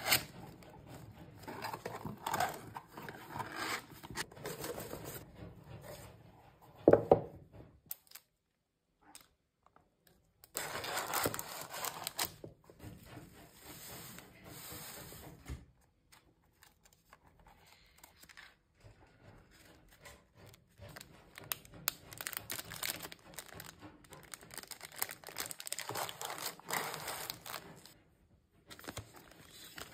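Hands handling packaging: a cardboard mailer box and its paper lining being folded and scraped, then shredded paper filler rustling and plastic sachets crinkling. The sounds come in irregular bursts with a brief louder one about seven seconds in and a few short pauses.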